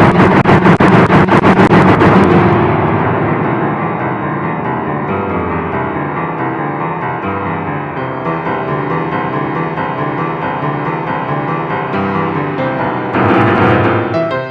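Dark-toned ringtone music. A dense, fast-pulsing passage breaks off about two seconds in into a quieter run of piano-like keyboard notes, and the music swells louder again near the end.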